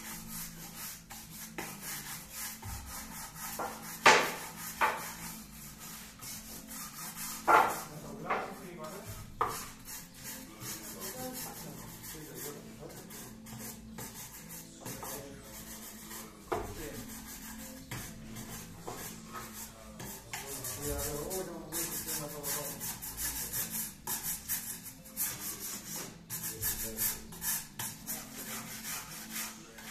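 Hand scraper scraping the old finish off a turned wooden lamp-table base in repeated short strokes, which come faster and closer together after about twenty seconds. A few sharp knocks stand out near the start, the loudest about four seconds in.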